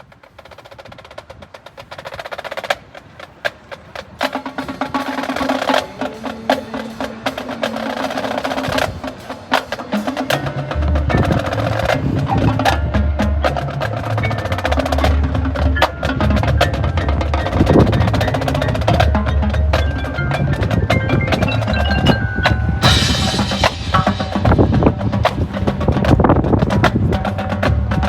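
High school marching band music: percussion with wood block, drum rolls and mallet bells builds up, then low brass and the full band come in with long held notes about a third of the way through.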